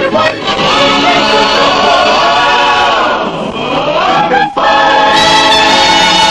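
Choir singing long held notes over musical backing, with a brief dip in the sound about four and a half seconds in.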